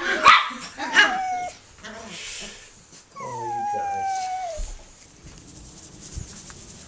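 Jack Russell Terrier puppies yipping and whining at play: sharp yips near the start, then high whines that slide down in pitch, a short one about a second in and a longer one about three seconds in.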